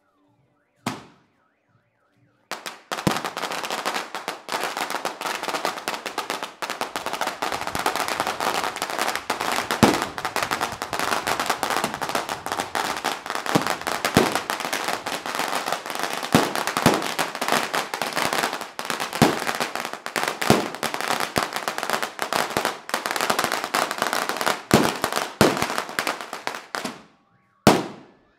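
A long roll of firecrackers (an 'ametralladora' string) going off in a dense, rapid crackle for about twenty-five seconds, with louder cracks mixed in. It is preceded by a single bang about a second in and followed by one last loud bang near the end.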